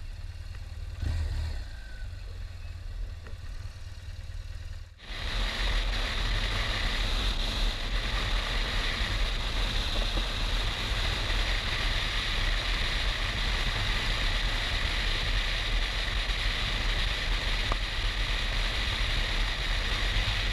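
BMW R1200GS boxer-twin motorcycle engine running low and quietly while crossing a junction. About five seconds in the sound changes abruptly to steady, loud wind noise on the camera's microphone at highway speed, with the engine droning beneath.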